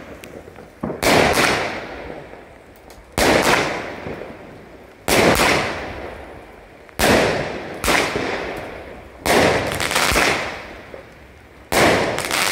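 Fireworks battery firing one loud shot about every two seconds, six in all, each bang trailing off over a second or so.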